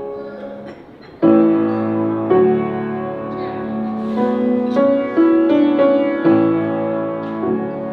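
Live piano playing a slow piece of sustained chords and melody notes, with a loud chord struck about a second in.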